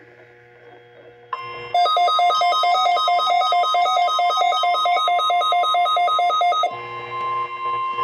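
The NOAA Weather Radio 1050 Hz warning alarm, a steady tone, comes on about a second in during a required weekly test. From just under two seconds in, an electronic alert alarm beeps over it in a fast two-pitch pattern of about five beeps a second. The beeping stops a little over a second before the end while the steady tone carries on.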